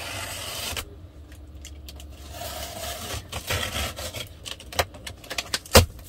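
Box cutter slicing along packing tape on a cardboard box, then the cardboard flaps being pulled open with scraping and several sharp knocks, the loudest just before the end.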